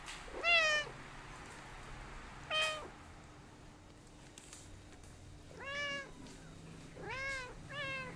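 A domestic cat meowing five times, short arching calls that rise and fall in pitch, the last two close together near the end.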